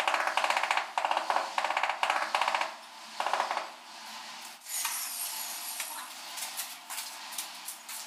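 Ceramic wall tiles being tapped with a hammer to bed them into mortar: quick bursts of knocks about twice a second, which stop about three and a half seconds in. After that come fainter clicks and the scrape of a trowel in a metal mortar bowl.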